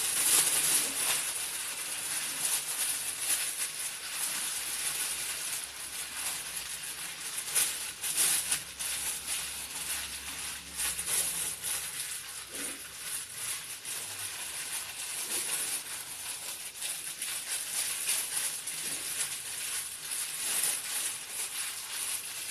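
Thin plastic bag crinkling and rustling without a break as hands knead chicken wings and marinade inside it vigorously.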